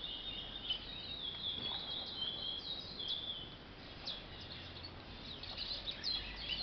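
Young curió (chestnut-bellied seed finch) singing a run of high, clear whistled notes and short slurs, a bird still in song training.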